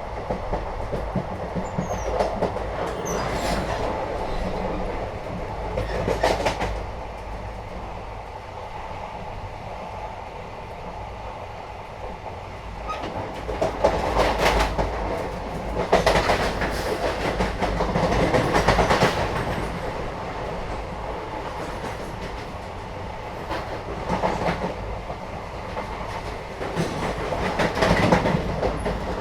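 Inside a moving Indian passenger train: the steady rumble of the carriage with rattling and clickety-clack of the wheels on the track, swelling louder a few times.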